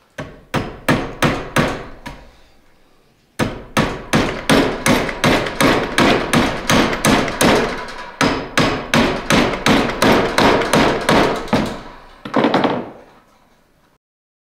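Hammer driving half-inch cable staples into a wooden gate frame to hold down wire mesh. Quick hammer blows about three a second: a short run, a brief pause, then a long steady run of blows that stops near the end.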